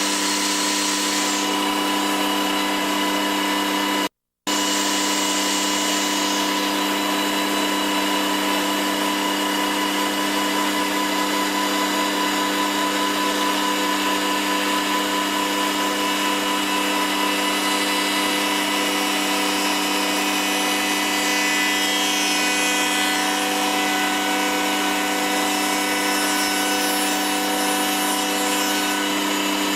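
NC router spindle running a woodworking cutter through wood: a steady machine whine with several fixed tones, and a cutting hiss that is strongest in the first few seconds. The sound drops out completely for a moment about four seconds in.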